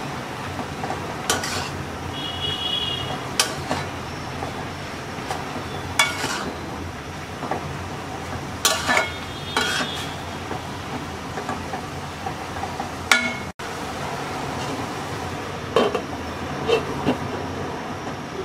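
A metal spoon stirring boiled spinach in an aluminium pot: scattered knocks and scrapes of the spoon against the pot over a steady hiss.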